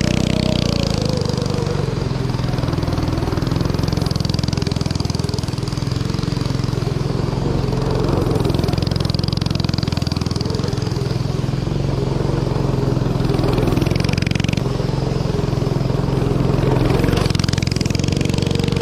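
Predator 212 single-cylinder small engine with a stage one kit, powering a go-kart and running hard, its revs rising and falling as it is driven.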